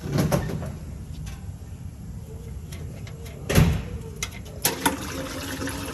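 Plastic oil drain bin being slid into place under the van: one loud scraping knock about three and a half seconds in, then a few sharp clicks.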